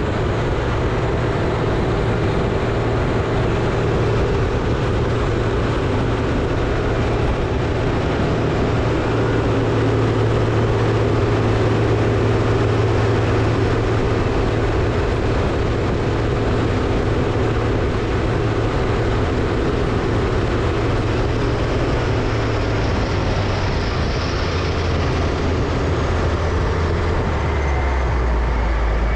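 Diesel engines of Caterpillar 637C scrapers running hard under load, a loud, steady heavy-machinery drone. The low engine note shifts near the end.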